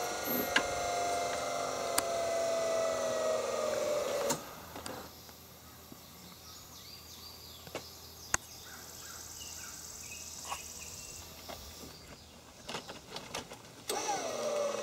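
Electric motor of a tractor seat transfer lift whining steadily as it lowers the seated rider, its pitch sinking slightly, then stopping about four seconds in. After that come a few faint clicks and short chirps, and a short sweeping whine near the end.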